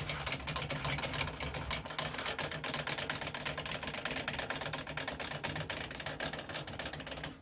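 Metal lathe running: a steady rapid gear clatter over a low hum.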